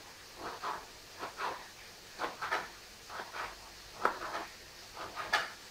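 Fingers peeling the charred skin off a roasted hot green chili pepper on a plastic cutting board. The result is a string of short rubbing and scraping sounds, about two a second, with sharper taps about four seconds in and again near the end.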